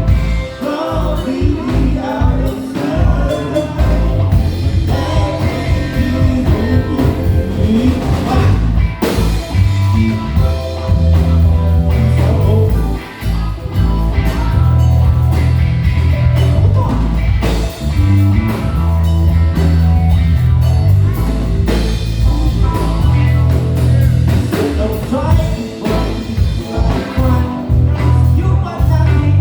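Live band playing a blues-rock groove: electric bass, drum kit and keyboards, with a lead line over them, loud and continuous.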